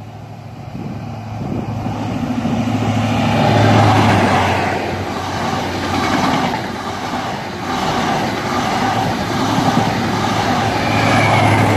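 A First Great Western InterCity 125 High Speed Train passing close at speed. The leading diesel power car's engine builds and peaks about four seconds in, then the coaches run by with a steady rush and a regular wheel clack about once a second, and the rear power car's engine swells again near the end.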